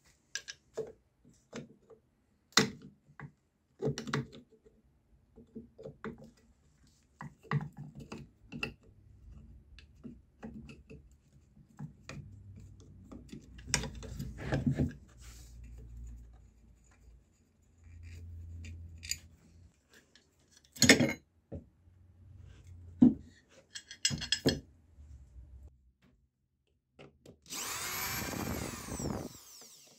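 Scattered clicks, knocks and scrapes of a screwdriver and a plastic horn tweeter against a wooden speaker cabinet. Near the end a cordless drill/driver runs for about two seconds on a tweeter's mounting screw, its motor pitch sweeping up and down.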